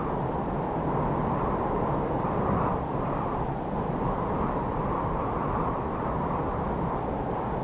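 Wind sound effect: a steady low rush of blowing wind that swells and eases in gentle gusts every second or so.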